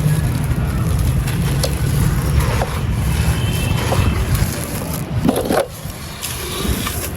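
Dry clay and gritty sand crumbling and being crushed: a continuous gritty crunching and scraping with scattered sharp crackles, the heavy low rumble easing off about four and a half seconds in.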